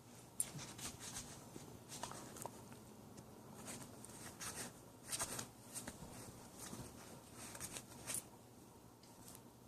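A puppy gnawing and chewing: faint, irregular crunches and scrapes that come in clusters, with small pauses between them.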